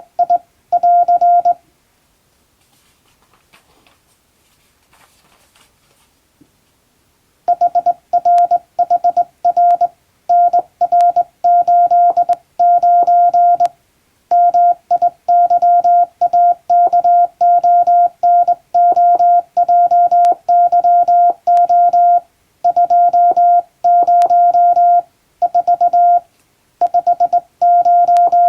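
Morse code sent by hand on a straight key: a single steady mid-pitched beep switched on and off in dots and dashes, spelling out English telegram practice text. The sending breaks off about a second and a half in and resumes after about six seconds.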